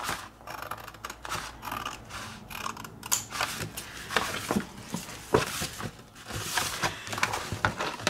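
Scissors cutting through a folded sheet of paper in a run of short snips, with the paper rustling as it is handled and smoothed flat.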